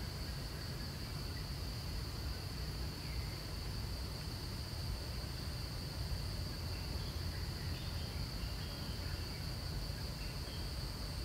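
Steady high-pitched drone of insects, with a low rumble underneath and a few faint chirps in the second half.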